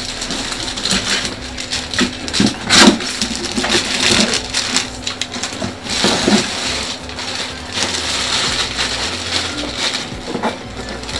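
Clear plastic packaging crinkling and rustling as a helmet case wrapped in a large plastic bag is handled, with sharp crackles throughout, the loudest about three seconds in.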